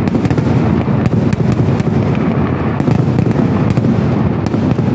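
Kerala temple fireworks (vedikettu) going off in a continuous barrage: a dense, unbroken rumble of explosions with sharp cracks on top, about three a second at irregular intervals.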